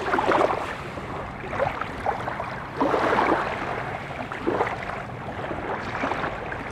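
Small waves lapping up the sandy shore, each wash swelling and fizzing back about every one and a half seconds.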